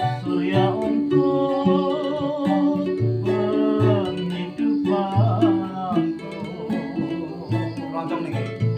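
Keroncong band playing an instrumental intro: small lutes and guitar keep a steady, busy plucked rhythm over a plucked bass line, while a lead melody with vibrato plays above.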